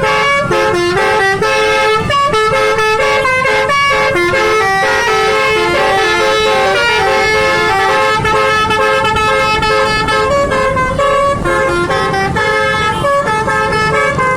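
Basuri telolet multi-tone air horn on a tour bus playing a tune, its loud notes stepping up and down in pitch without a break.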